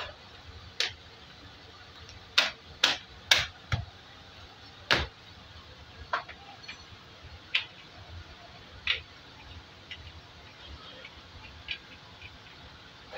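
Hard plastic clicks and knocks from a folding plastic laundry basket being handled and its lid fitted: about ten sharp, irregular clicks, the loudest a quick run of four between about two and four seconds in, then one near five seconds.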